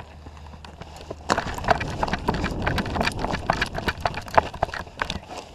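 Running footsteps: a quick, irregular patter of steps that starts about a second in.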